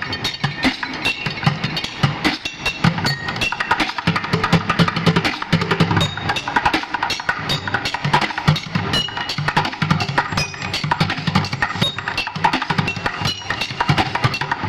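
Bucket drumming: fast, dense drumstick strikes on buckets, sharp clacks mixed with deep thuds, played without a break.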